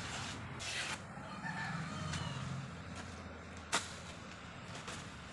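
Knife chopping at a felled banana trunk: a short swishing rustle about half a second in and one sharp knock a little before four seconds in, over a steady low hum.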